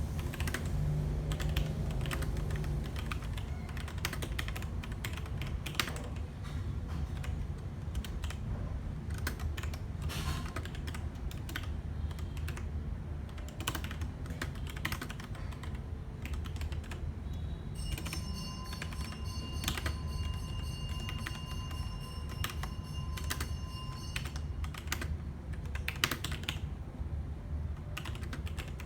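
Continuous typing on a Logitech G Pro mechanical keyboard: fast, irregular key clicks over a low hum. For several seconds in the second half, a steady high-pitched tone sounds alongside the keys.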